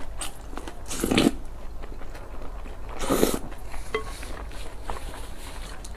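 Close-miked eating sounds: rice porridge slurped from a wooden spoon, twice, about a second in and again about three seconds in, with chewing and small mouth clicks between.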